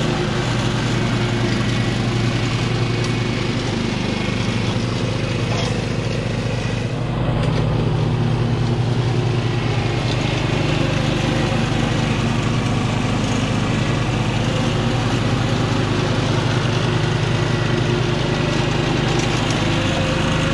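Husqvarna Rider ride-on mower's engine running steadily under load, its front-mounted deck cutting tall rough grass and weeds. It gets a little louder about seven seconds in.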